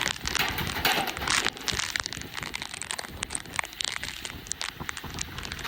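Strong hurricane wind gusting against the microphone: a rough, crackling rush with many sharp pops, loudest in the first second and a half.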